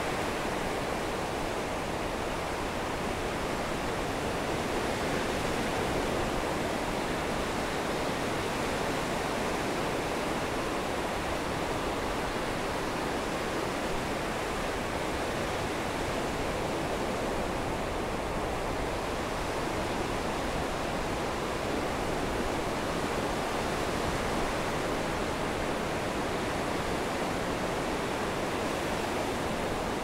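Rough storm surf breaking and washing in around the wooden pilings of an ocean pier: a steady, unbroken rushing of water with no single wave crash standing out.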